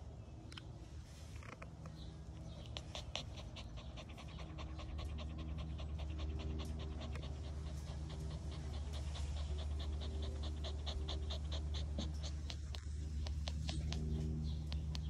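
Miniature schnauzer puppy panting in rapid, even breaths, about four or five a second, close to the microphone, over a low steady hum.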